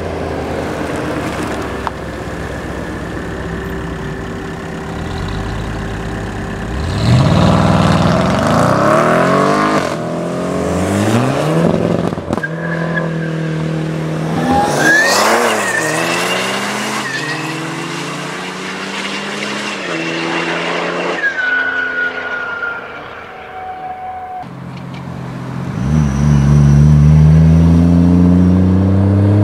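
Engines of modified performance cars idling, then revving hard and accelerating away. Rising revs come about a quarter of the way in and again near the end.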